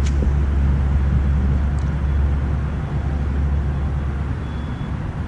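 Wind buffeting the microphone: a loud, steady low rumble that eases a little near the end.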